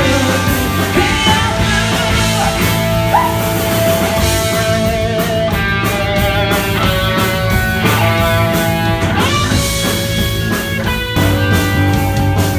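Live rock band playing an instrumental passage on electric guitars, bass guitar and drums, with long held guitar notes, one bent upward about three seconds in.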